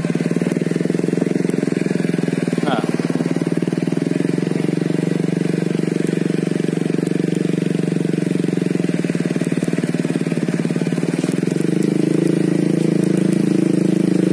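Honda Revo motorcycle's single-cylinder four-stroke engine running steadily under way, its note rising a little and getting slightly louder about twelve seconds in.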